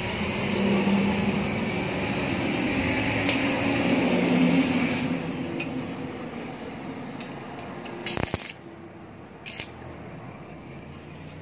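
Two short crackling bursts of a stick (arc) welder striking an arc, about eight and nine and a half seconds in: quick tack welds fixing a wire shelf ring to a steel leg. Before them a steady rushing noise runs for the first five seconds, then fades.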